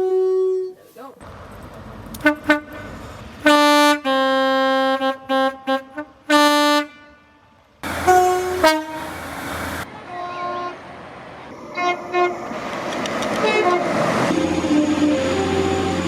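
Train horns blowing: a series of short toots and longer multi-note chord blasts, several of them cut off abruptly. In the last few seconds a train's rumble grows louder beneath fainter horn notes.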